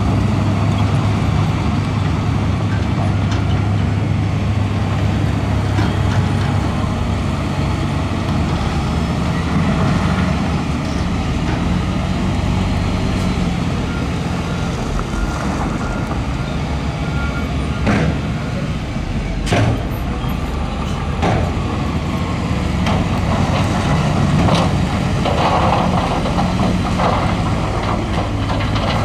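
Heavy earthmoving machinery's diesel engine running steadily at work, with a few sharp clanks about two-thirds of the way through.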